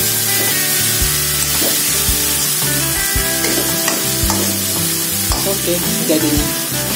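Sambal of petai beans and anchovies sizzling in a coated wok, with a metal spatula scraping and tapping against the pan as it is stir-fried.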